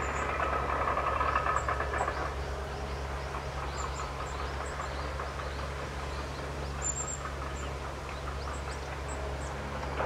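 Steady low rumble of distant vehicle traffic, louder for the first two seconds, with very short, high, thin bird calls scattered through it.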